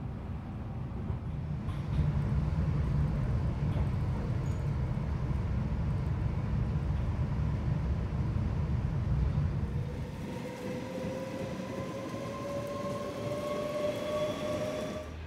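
Electric train running with a steady low rumble. About ten seconds in the rumble drops away and an electric train's motors whine, rising slowly and steadily in pitch as it accelerates.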